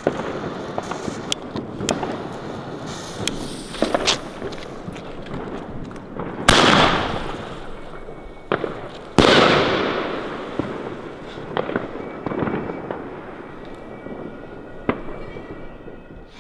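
Funke Tempest 30 mm shell tube (Bombenrohr) firing: two loud booms about two and a half seconds apart, each trailing off in a long echo, the first the lift charge launching the shell and the second the shell bursting in the sky. Scattered sharp cracks sound before and after.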